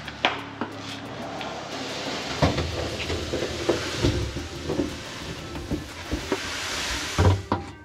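Blasting sand poured from a plastic bucket into a sandblast cabinet's hopper: a steady hissing rush of falling grains with a few knocks. It stops sharply just before the end.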